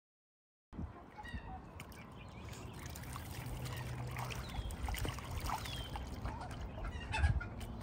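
Ducks in water: splashing and trickling, with a few short high calls, over a low rumble. The sound starts abruptly about a second in.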